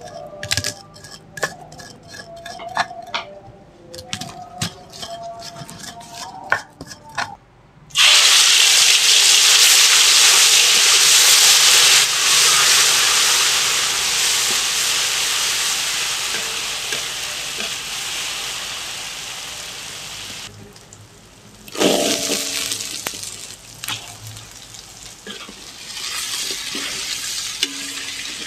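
Stone pestle knocking and grinding on chillies, shallots, garlic, candlenuts and turmeric in a stone mortar. About 8 seconds in, the spice paste hits hot oil in a metal wok with a sudden loud sizzle that slowly fades as it is stirred with a metal spatula. A second loud burst of sizzling comes about 22 seconds in, then quieter frying and stirring of boiled takokak and papaya flowers.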